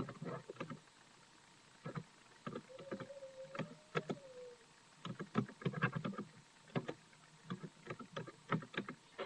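A run of irregular light knocks and clicks, with a faint wavering tone lasting about a second and a half around the middle.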